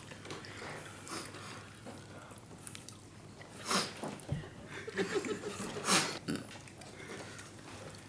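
Crispy fried chicken being bitten and chewed quietly, crunching, with two louder crunches about four and six seconds in.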